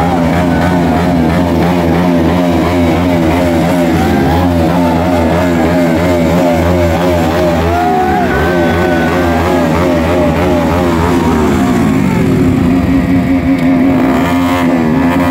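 Motorcycle engine running steadily and revved, its pitch dropping about 12 seconds in and climbing again near the end, with music playing over it.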